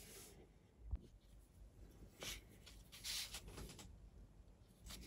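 Near silence, with a few faint rubbing and scratching sounds from hands handling a plastic model-kit sprue and paintbrush, and one soft knock.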